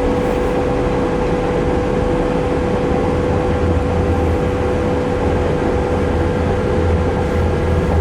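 Passenger-cabin noise of a diesel multiple-unit train under way: a steady hum with two held tones over the running noise, and a deeper engine drone that swells up about two and a half seconds in.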